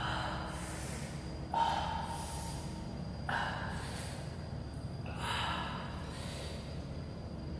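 A man breathing hard through his mouth, a noisy gasp or blow about every one and a half to two seconds, from the burn of super-spicy chilli noodles.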